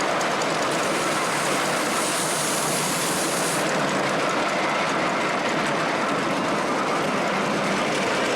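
Miniature railway train running along the track with a steady rumble and rattle of wheels on rails. A brief high hiss comes in about a second in and stops about three and a half seconds in.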